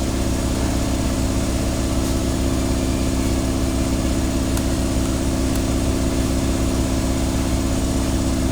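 Steady machine hum with a strong low drone that holds constant throughout, with a few faint ticks over it.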